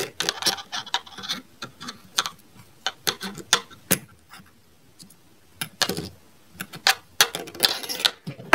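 Silicone bubbles of a pop-it fidget toy being pushed in with a finger: a string of quick, irregular clicks and pops, with a pause of about a second midway. The owner finds this toy's pop not very good.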